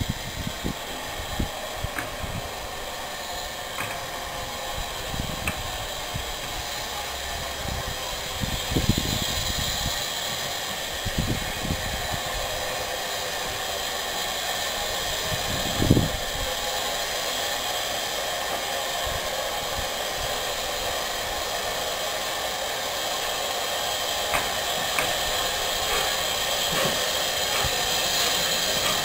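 Small steam tank locomotives moving slowly while shunting: a steady hiss of steam with scattered clanks and knocks, one louder knock about halfway through. The sound slowly grows louder as the engines come closer.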